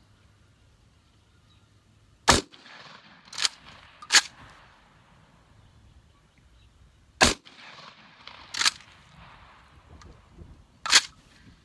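Vepr 12 semi-automatic 12-gauge shotgun firing 00 buckshot: a string of sharp reports, spaced from under a second to several seconds apart, some louder than others.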